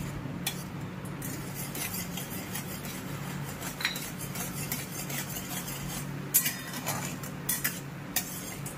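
A spatula scraping and knocking against a hammered steel kadai while sugar syrup is stirred as it comes to the boil. Several sharper clinks come in the second half, over a steady low hum.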